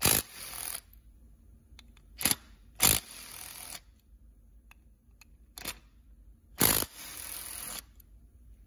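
Long driver loosening the screws that hold the aluminium crankcase halves of an Echo PB-770T two-stroke blower engine together: five sharp clicks as the screws break loose and the bit seats, three of them followed by about a second of scraping as a screw turns out.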